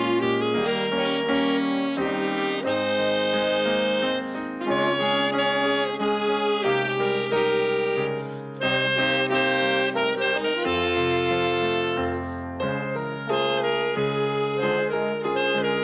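Live orchestra music from a learners' ensemble: several instruments hold sustained chords that change every second or so. There are brief lulls about four, eight and twelve seconds in.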